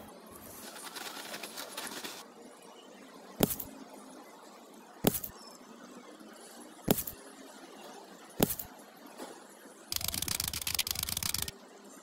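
A small steel trowel scraping through sand, then four sharp clicks about a second and a half apart as miniature clay bricks are set down, and near the end about a second and a half of dense, rapid rattling.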